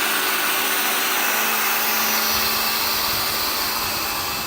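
Bissell AirRam cordless upright vacuum running on carpet: a steady motor hum over a continuous rush of air, with some low rumbling partway through.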